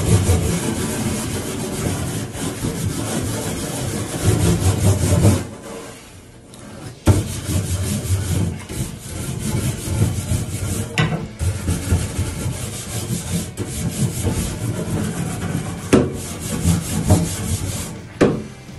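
Steady rubbing and scrubbing on the Weber Traveler grill during cleaning, in long back-and-forth passes. It breaks off about five and a half seconds in, resumes, and is punctuated by a few sharp knocks.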